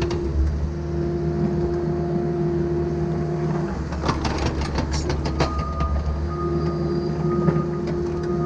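CAT mini excavator's diesel engine running with a steady hydraulic whine as the bucket digs. About four seconds in, the whine drops out for a couple of seconds while rock and dirt clatter and scrape in the bucket.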